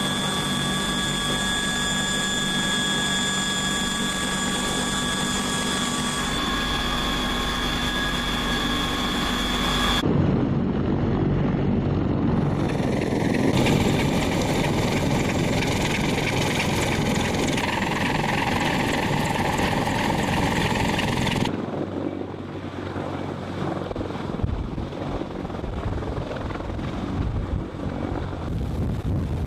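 Military heavy-lift helicopter running, with a steady high turbine whine over the rotor and engine noise. The sound changes abruptly twice, about a third and two thirds of the way through. The last part is quieter and mostly rushing noise.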